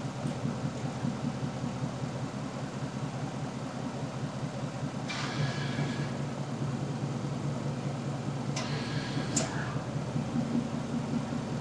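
Land Rover Defender 90's 5.0-litre supercharged V8 idling steadily, with two brief higher-pitched noises about five and nine seconds in.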